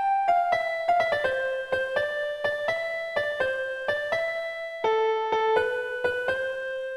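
A Huawei mobile phone ringtone: a simple electric-piano melody of single notes, a few a second, each struck sharply and dying away.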